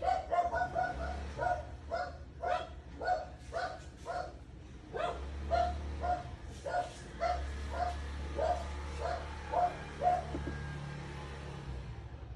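An animal calling over and over in short pitched calls, about two a second, stopping near the end, with a low hum underneath at times.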